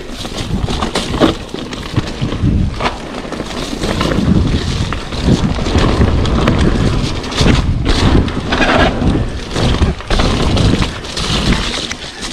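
Wind rushing over the microphone and a mountain bike rattling down a wet dirt trail at speed: tyres on mud and roots, with many sharp knocks from bumps.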